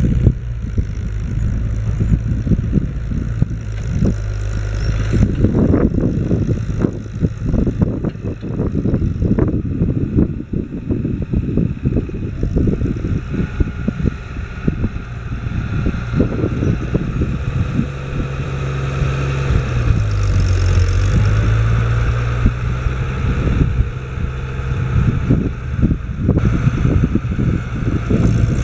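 Case IH 1056 XL tractor's six-cylinder diesel engine running steadily under load while pulling a four-furrow plough. Its engine note dips and picks up again about twenty seconds in.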